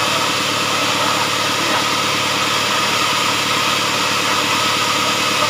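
Engine-driven sawmill running steadily: a continuous mechanical drone with a steady whine over it and no change in speed.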